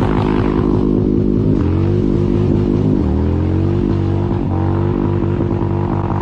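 Harley-Davidson touring motorcycle's V-twin accelerating away under load. The engine pitch drops twice at gear changes, about one and a half and three seconds in, and climbs again after each.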